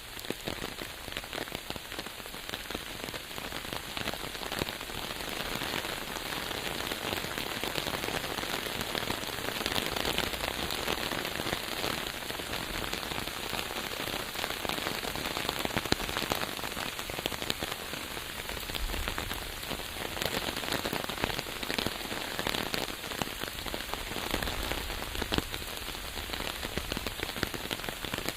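Steady rain falling, a dense hiss of drops hitting a surface with many individual drop ticks standing out. A low rumble rises underneath in the later part.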